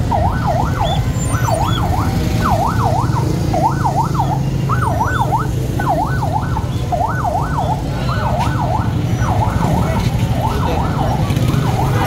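Electronic siren yelping: a rapid wail that sweeps up and down two or three times a second, over the steady low rumble of engines in street traffic.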